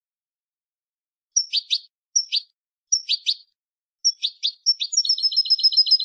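Wild (campero) European goldfinch song. After about a second of silence come short twittering phrases, each a high note dropping sharply, repeated roughly every three-quarters of a second. Near the end it breaks into a fast trill of about eight notes a second.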